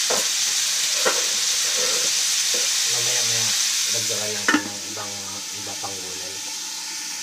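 Squash, onion and tomato sizzling in a frying pan, with a few light knocks. About four and a half seconds in, an aluminium lid clanks down on the pan and the sizzle goes quieter and muffled under the lid.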